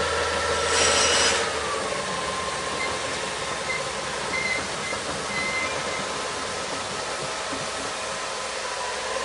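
Diesel shunting locomotive of the DB V60 class: a short hiss of air about a second in as the engine drops back from revs to idle, then a steady idle with a whining tone, and the revs start to rise again at the very end.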